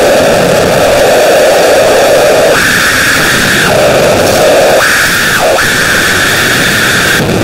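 Loud static-like hiss whose pitch jumps abruptly back and forth between a lower rushing register and a higher, thinner one, switching up three times before the high part cuts off near the end.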